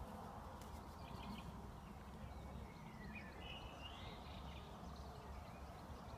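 Low, steady outdoor rumble of wind on the microphone, with a bird chirping a few times about three to four seconds in.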